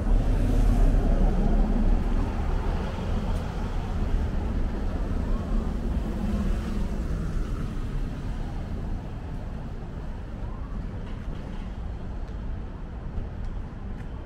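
Street traffic: a motor vehicle running close by, its low rumble loudest in the first couple of seconds and then slowly fading away.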